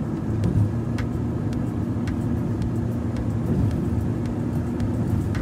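Cabin road noise of a car driving on a wet freeway: a steady low rumble of engine and tyres with a faint steady hum, and light sharp ticks about every half second to a second.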